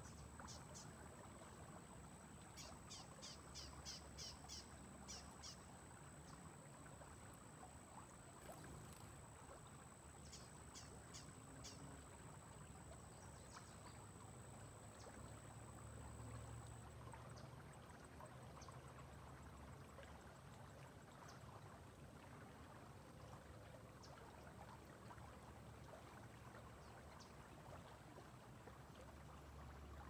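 Faint riverside ambience near silence: two quick runs of short, high clicking calls from a small animal, about three seconds in and again about ten seconds in, with a few single clicks later. Underneath are a faint steady high tone that fades out about halfway and a low rumble.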